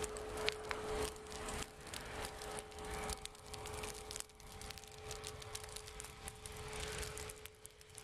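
Dry ditch grass and brush crackling as it burns, with many small pops over a low rumble and a steady hum.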